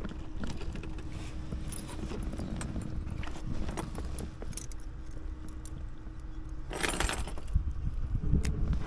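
Small metal clicks and jangling as a fish stringer's clip and cord are handled on a kayak deck, under a faint steady hum, with a louder rustling burst about seven seconds in.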